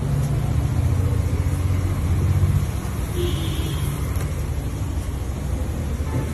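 Low, steady rumble of a motor vehicle engine running nearby. It is loudest in the first couple of seconds, then eases off.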